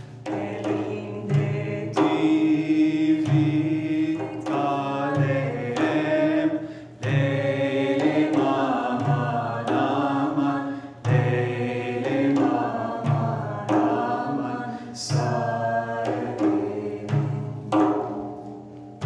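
Frame drums played live in a steady rhythm, deep bass strokes alternating with sharp rim slaps, under a voice singing a Turkish folk melody.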